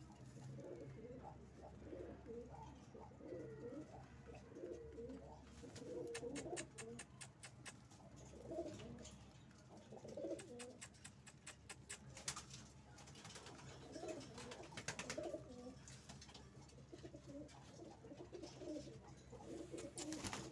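Domestic pigeons cooing again and again, with runs of rapid sharp clicks as they peck grain off the concrete floor.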